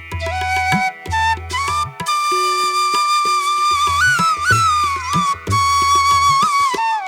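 Music: a single melody line that slides and bends between notes, played over a pulsing bass beat with light percussion ticks.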